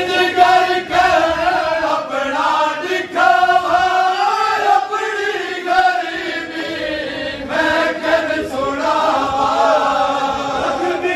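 Group of men chanting a noha, a Shia Muharram lament, in drawn-out, wavering sung notes with brief breaks between phrases.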